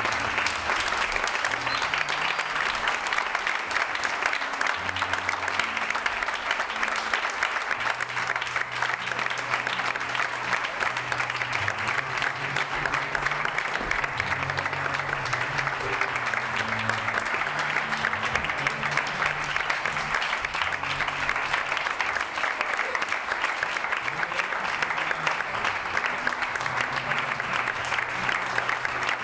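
A group of people clapping steadily and without a break, with music playing underneath whose low bass notes step from pitch to pitch.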